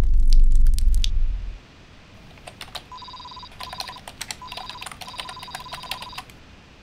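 A loud deep rumble with dense clattering clicks, from the clockwork refining machine, stops abruptly about a second and a half in. After a short lull, a computer terminal prints its output with rapid typing clicks and short electronic beeps, in several runs.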